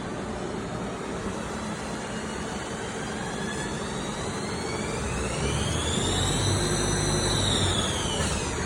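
Haas ST-20 CNC lathe running, its spindle drive whine rising in pitch as the spindle speeds up, holding briefly, then falling as it slows near the end, over a steady machine hum.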